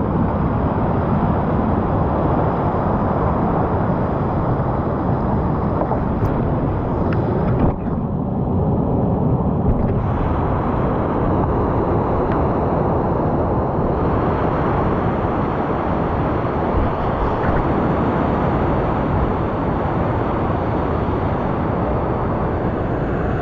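Loud, steady rush of whitewater in a river rapid, heard close to the water. It turns briefly muffled about eight seconds in.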